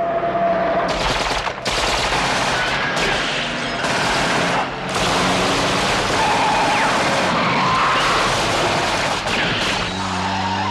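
Long bursts of automatic gunfire from submachine guns, nearly continuous from about a second in, with a few short breaks.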